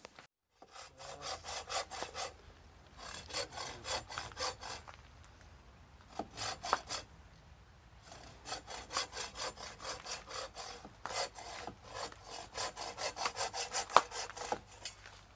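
Handsaw cutting through a dead tree limb in quick back-and-forth strokes, about three or four a second, in several runs with short pauses between them.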